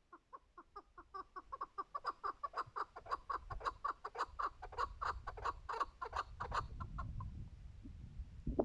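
Chukar partridge calling: a long run of short clucking notes, quickening and growing louder, that stops about seven seconds in. A low rumble comes in underneath in the second half, and a single sharp click sounds near the end.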